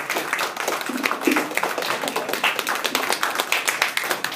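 A small group applauding: many quick, irregular hand claps overlapping, with a short call or two mixed in near the start.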